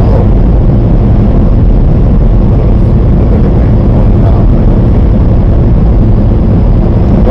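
Semi-truck driving down the road: a steady low engine and road rumble.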